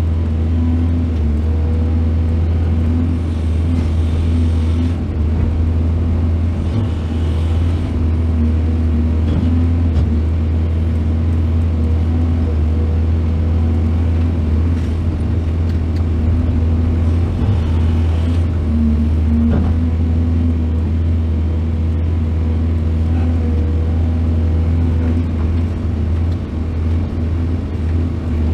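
Heavy diesel engine of earthmoving machinery running steadily with a deep, low drone. A brief hiss rises over it a few times.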